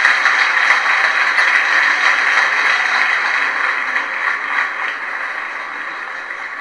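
Lecture-hall audience laughing and clapping in a dense, even crowd noise that slowly dies away over the last couple of seconds.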